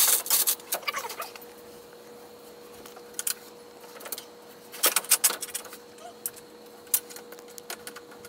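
Light metal clicks and taps of hardware being handled while a trailing arm's misalignment spacers and bolt are fitted: a few scattered taps in the first second, a single tap about three seconds in, and a quick cluster about five seconds in. A faint steady hum runs underneath.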